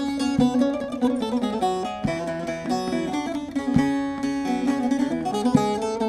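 Short-neck bağlama with a mulberry bowl and spruce soundboard being played: a strummed melody of changing notes with frequent sharp strokes, demonstrating the instrument's tone.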